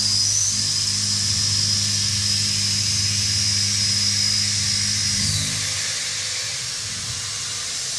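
3/4-inch Kennametal HARVI 1 TE solid carbide end mill taking a full-width slot cut in steel on a CNC machining centre: a steady high whine over a low hum from the spindle and cut. The whine slides down and fades about five seconds in.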